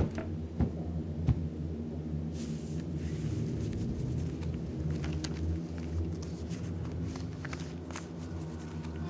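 A low steady hum with a couple of soft knocks about a second in, then paper rustling and crinkling as an envelope is opened and a folded card is unfolded.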